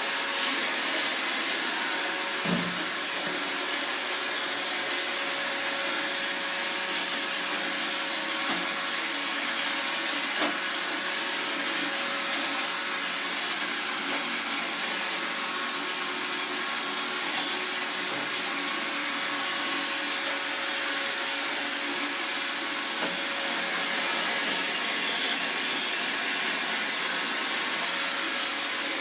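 iRobot Roomba robot vacuum running, a steady hiss with a constant hum. A few brief knocks come through, the loudest about two and a half seconds in.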